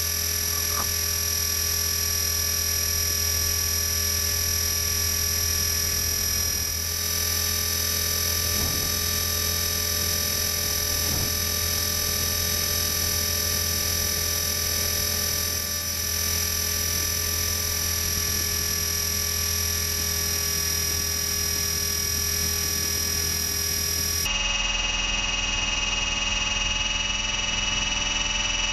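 Blade 450 RC helicopter's electric motor and drivetrain whining steadily under the rotor drone, heard from a camera mounted on the helicopter, as several unchanging tones at once. The tone changes abruptly near the end.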